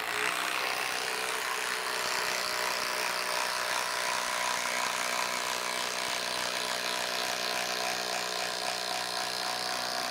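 DeWalt 12V Xtreme impact driver on high speed, hammering continuously as it drives a 6-inch Spax screw into a log's end grain: a steady, rapid impacting rattle over the motor's whine, with no let-up.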